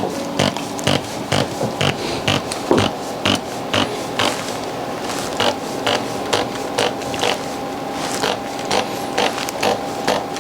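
Computerized chiropractic scanning instrument tapping along the spine to measure joint stiffness: light, evenly spaced clicking taps about two a second, over a faint steady hum.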